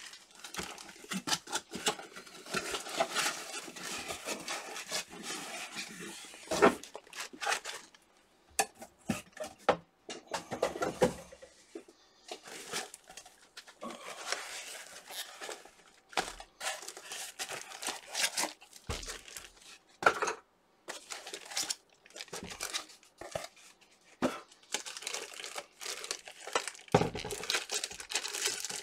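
Clear plastic packaging crinkling and rustling as the preheater and its bagged board holder are unpacked from foam, with a few sharp clacks of hard parts set down or knocked on the bench.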